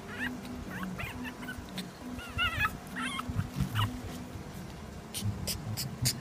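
Pomeranian puppy whimpering and yipping in short, high, wavering squeaks, several in the first four seconds, followed by a few sharp clicks near the end.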